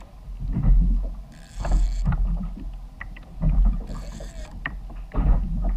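Water slapping against a kayak hull in repeated surges about every second and a half, with wind buffeting the microphone and a few light clicks in between.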